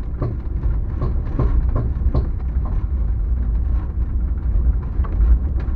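Vehicle driving on a rutted dirt road: a steady low rumble with frequent knocks and rattles as it jolts over bumps.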